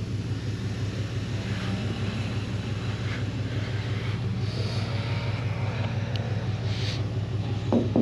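A large engine running at a steady speed, a deep even hum.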